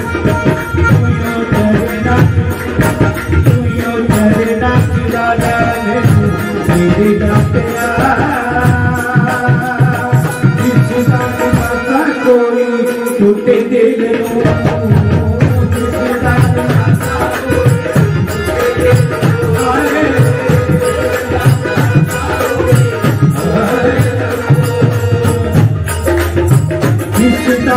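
Live bhajan music: an electronic keyboard playing a sustained melody over steady tabla and dholak drumming. The drums drop out for a moment about twelve seconds in.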